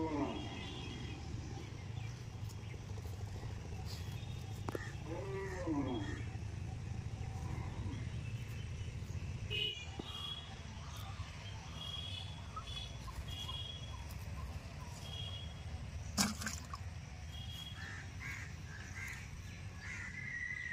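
Outdoor ambience with a steady low rumble and birds chirping on and off. There are two drawn-out calls that rise and fall, one at the start and one about five seconds in, and a single sharp knock about sixteen seconds in.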